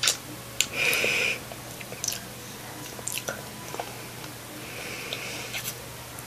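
Mouth sounds of someone sucking on a hard lollipop: several sharp wet smacks and clicks of the lips and tongue, with two short hissing sounds, about a second in and again about five seconds in.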